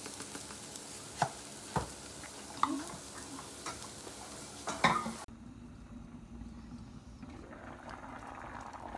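Food sizzling in a frying pan, with a few sharp clicks of a utensil against the pan while it is stirred. About five seconds in, the sizzle cuts off abruptly and a quieter, duller hiss remains.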